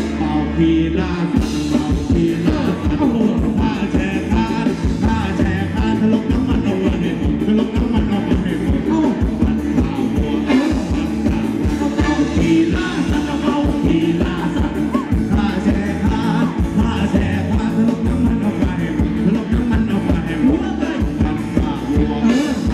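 Live Thai ramwong dance band playing with a singer, driven by a steady beat.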